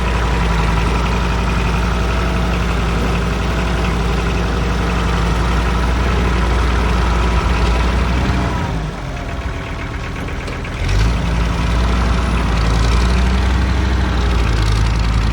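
Tractor engine running steadily. It drops for about two seconds in the middle, then comes back strong.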